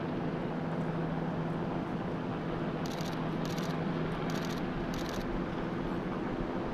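Steady engine drone with a constant low hum. Four short high chirps come between about three and five seconds in.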